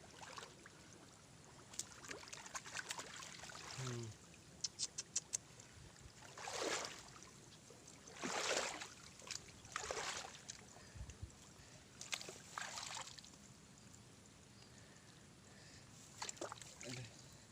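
Muddy water splashing and sloshing in several separate swishes, with small clicks and ticks between them.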